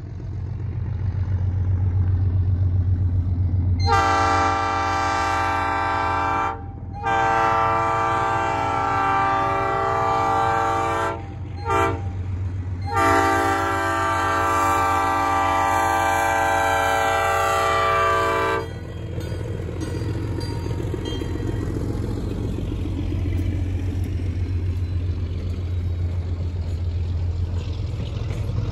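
Durango & Silverton steam locomotive whistle blowing four blasts, long, long, short, long, the grade-crossing signal, each a steady chord of several tones. A steady low rumble runs underneath.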